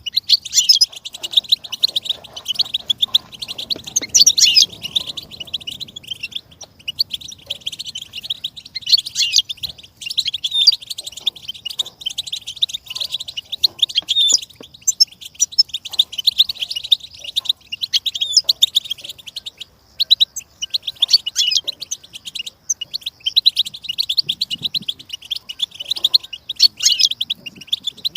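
Goldfinch singing: a long, rapid, chattering twitter of quick high notes, broken only by brief pauses.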